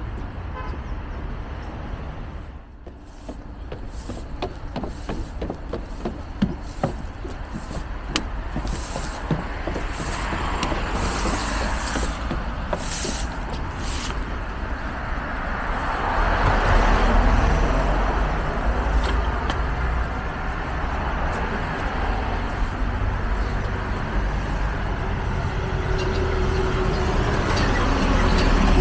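City street traffic: motor vehicles passing with a steady low rumble, swelling louder a little past halfway.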